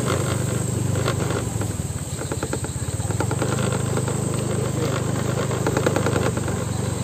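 Small engine running steadily, an even low hum.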